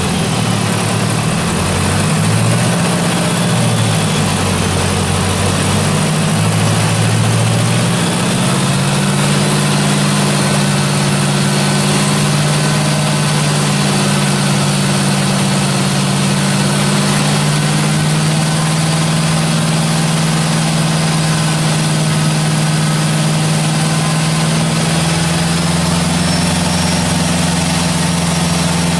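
Mazda FE3 turbocharged four-cylinder engine running continuously. Its speed shifts up and down for the first several seconds, then holds steady.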